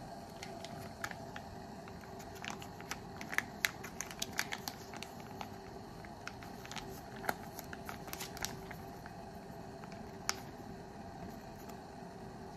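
Plastic sauce sachet crinkling and crackling in the hands as it is handled and opened, in irregular clusters of sharp crackles with one sharper click near the end, over a faint steady hum.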